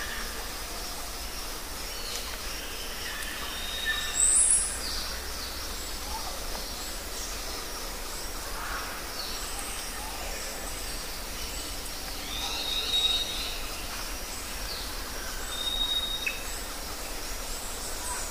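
Steady outdoor background hiss with scattered short, high bird chirps and whistles; a sharp high chirp about four seconds in is the loudest sound.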